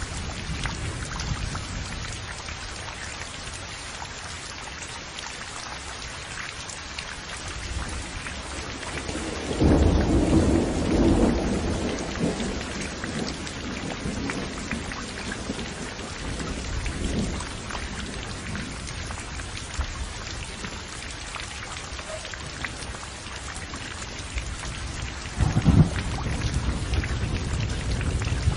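Steady rain pouring, with thunder rumbling through it. A loud roll of thunder comes about a third of the way in, a weaker one follows, and another strikes sharply near the end.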